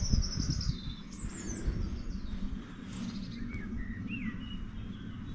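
Small birds singing: a scatter of short high chirps and quick trills, over a low rumble that is loudest in the first second.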